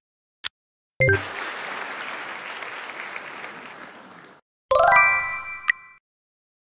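Quiz sound effects: a last countdown-timer tick, then a ding with a burst of applause that fades over about three seconds, marking the correct answer. Near the end, a bright, quick chime plays for about a second.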